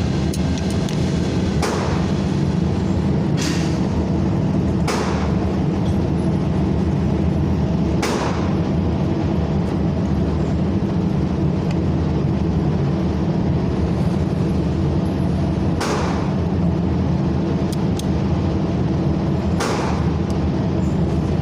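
Steady low hum of a running vehicle engine, with about six short sharp cracks spread through it.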